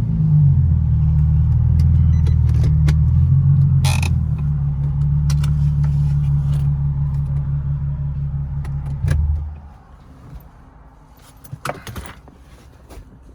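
Infiniti G37's V6 engine idling with a steady low drone, then switched off about nine and a half seconds in. A few light clicks follow.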